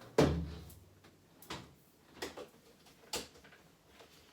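Front-loading washing machine door shut with a heavy thud that resonates briefly, followed by a few light clicks and knocks.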